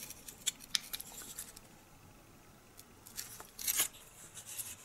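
Hard plastic parts of a 1/48 Hobby Boss Me 262 kit clicking and scraping in the fingers as the gun-bay section is pressed into the fuselage nose. A scatter of small, sharp clicks, with a busier cluster a little past the middle.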